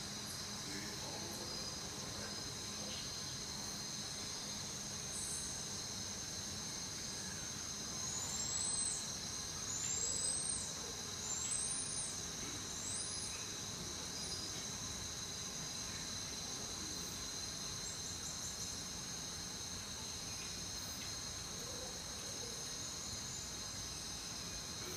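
Steady high-pitched insect chirring, with four short rising whistled calls about a second and a half apart in the middle.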